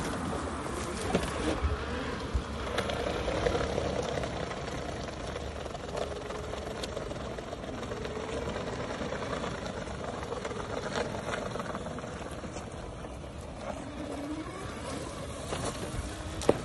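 Startec electric ATV being driven over asphalt and through long grass: a steady low rumble of tyres and rushing air, with a faint whine that wavers up and down in pitch and a few scattered clicks.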